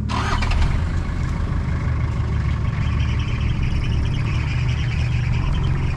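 Diesel 4WD engine running steadily at low revs.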